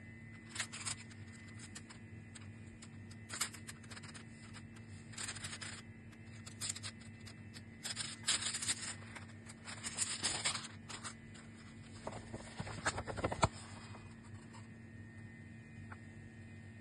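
A paper envelope being torn open by hand and the folded letter inside pulled out and unfolded: short bursts of paper crinkling, tearing and rustling, stopping a few seconds before the end.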